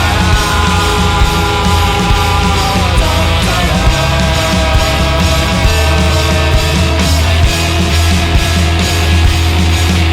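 Rock band playing live, with drums, bass and guitars. A held high note slides down about three seconds in and then holds at the lower pitch.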